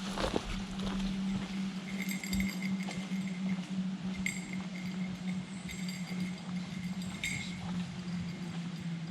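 Brief metallic jingles that ring out every couple of seconds, like a small bell or metal tags swinging while walking, over a steady low hum.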